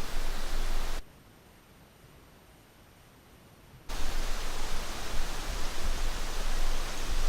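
Wind rushing over the microphone: a steady noise with a heavy low rumble. It drops out suddenly about a second in and comes back about three seconds later.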